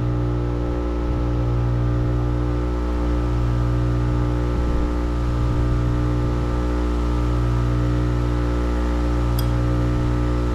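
Steady mechanical hum of a running machine, made of many even tones, with a low throb that pulses slowly about every two seconds.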